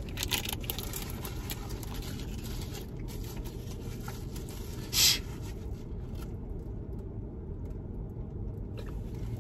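Steady low hum inside a car, with light rustling and scraping of food packaging as a cheese-sauce cup's lid is peeled off near the start. One short, sharp rustle about five seconds in is the loudest sound.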